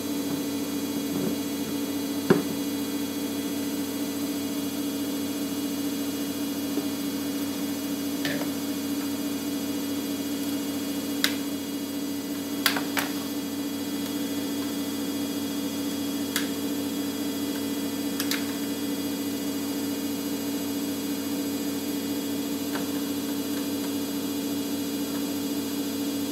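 A steady electrical hum, with short sharp clicks and taps now and then as the plastic parts of a ring light and tripod are handled and fitted together, a close pair of clicks about halfway through.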